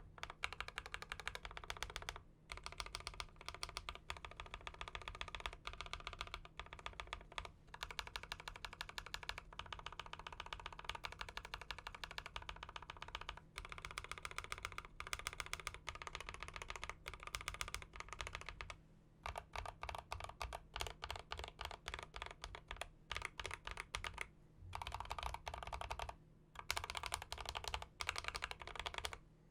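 Fast typing on a mechanical keyboard fitted with Akko CS Silver linear switches: a dense run of key presses, broken by several short pauses.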